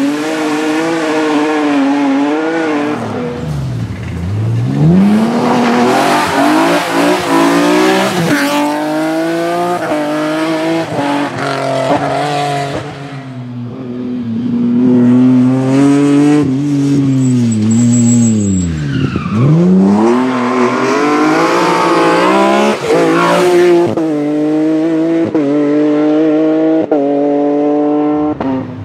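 BMW rally car engine at full throttle, climbing through the gears with several shifts. Twice the revs fall very low as it slows for a corner, then rise again as it accelerates away.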